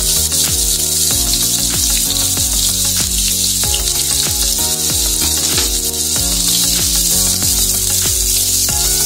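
Chopped onions sizzling in hot oil in a nonstick kadai, a steady hiss under background music. Near the end a wooden spatula stirs them through the pan.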